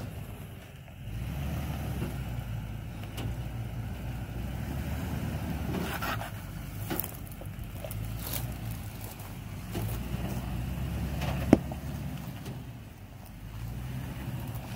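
2013 Toyota Sequoia's V8 running at low revs as the lifted SUV crawls slowly over rock ledges. A few sharp clicks, and one loud knock about eleven seconds in.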